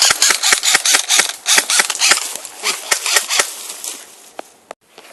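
Airsoft guns firing: rapid, overlapping sharp pops of laying down cover fire, thinning out after about three and a half seconds and stopping near the end.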